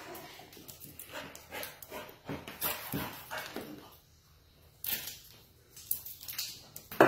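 Golden retriever and young golden retriever puppy playing, with short yips and whimpers and a sharp, loud knock near the end.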